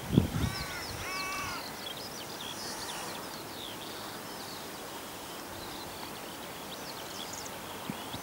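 A crow caws twice in the first second and a half, over many small, high chirps of songbirds and a steady outdoor hiss; a brief low bump sounds right at the start.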